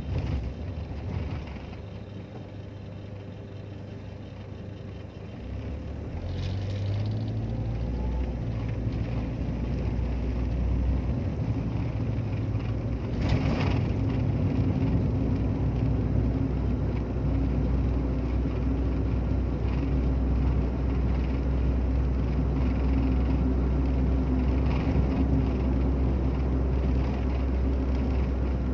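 A car driving on rain-wet streets, heard from inside the cabin: a steady low engine and road drone that grows louder about six seconds in and then holds. A brief hiss comes about halfway through.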